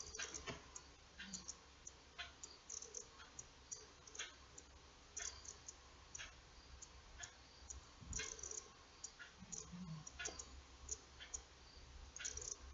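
Faint, irregular small clicks, a few each second, from a fine steel crochet hook and fingers working embroidery floss into single crochet stitches.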